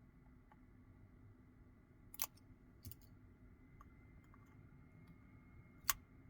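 A few sharp clicks and taps of small tools and phone parts being handled during smartphone disassembly, three of them distinct and the loudest near the end, over a faint steady hum.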